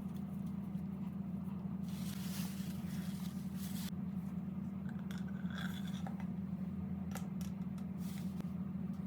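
Light scraping and clicking handling noises over a steady low hum, with a longer hissing rush about two seconds in.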